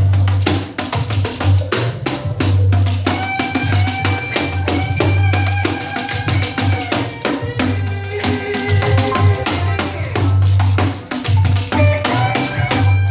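A 12-inch pandeiro with an old nylon head is played in a quick, steady run of jingle and head strikes. It plays along to a recorded soul song with a heavy bass line and held melody notes.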